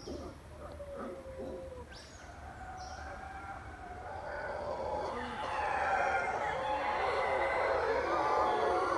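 A troop of mantled howler monkeys howling, a dense overlapping chorus that builds and grows louder from about halfway through.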